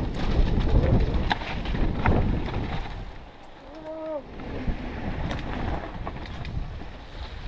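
Wind buffeting the microphone with the rumble and rattle of a mountain bike rolling fast down a dirt trail, broken by sharp knocks from bumps and rocks. It eases off about three seconds in, where a short pitched tone rises and falls for under a second.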